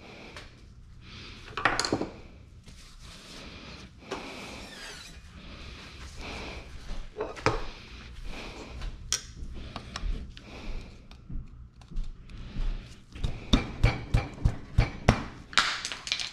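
Workshop handling noise of tools and fork parts: scattered clicks and knocks, then a quick run of about eight sharp thunks at roughly three a second near the end.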